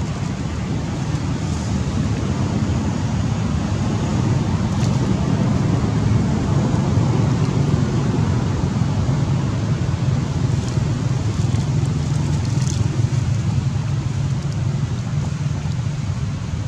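A steady low rumbling noise throughout, with a few faint crackles of dry leaves underfoot.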